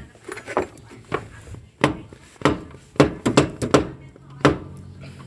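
A series of about nine sharp, irregular knocks as a car's front driveshaft is forced into the gearbox, its sliding joint being pushed home into the transmission.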